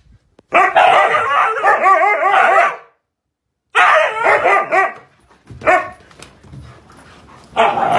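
Huskies play-fighting and vocalizing in loud bursts of wavering, rising-and-falling barks and yowls. There is a long burst of about two seconds starting half a second in, another around four seconds in, a short call near six seconds, and a fresh burst near the end.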